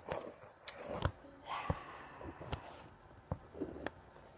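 Faint scattered clicks and rubbing from fingers handling the phone that is recording, close to its microphone.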